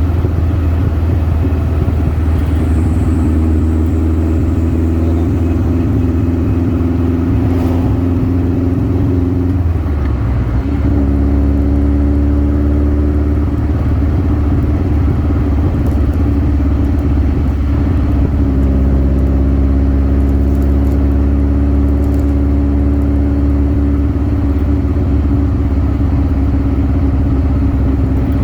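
Birkin Seven sports car's engine running under way, a steady loud engine note with road and wind noise. The note breaks briefly about ten seconds in, then settles again, and changes once more near eighteen seconds.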